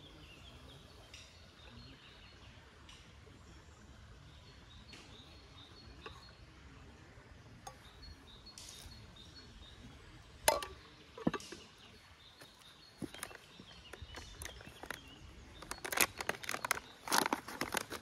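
Quiet outdoor background with faint bird chirps. About ten seconds in come two sharp clicks or knocks, then a run of clatter and rustling near the end as camping gear is handled.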